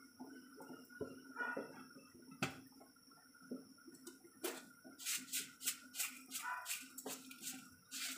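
Seasoning being shaken from a shaker over a pot of soup: scattered sharp clicks, then a quick run of taps about five to seven seconds in, over a faint steady hum.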